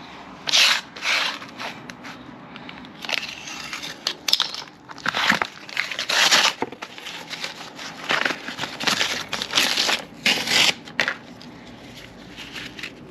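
Packaging of a new tow strap being cut and torn open: a run of irregular rustling, tearing bursts.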